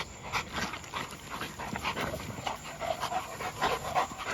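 American Bully dogs panting hard in quick, even breaths, several a second, while they work at tugging on a ball.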